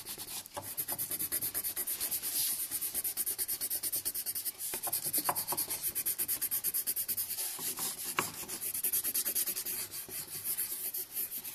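Colouring in on paper with green colour in quick, tiny, even strokes: a fast scratchy rubbing, several strokes a second.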